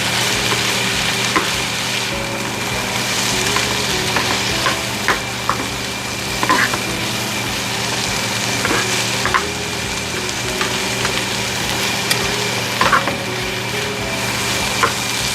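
Chicken stir-frying in a pan with oyster sauce and sesame oil: a steady sizzle, with a few sharp clicks of the utensil against the pan as it is stirred, over a steady background hum.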